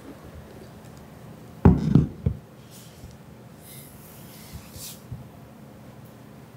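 Three dull knocks in quick succession about two seconds in, close to the microphone, followed by faint soft rustling.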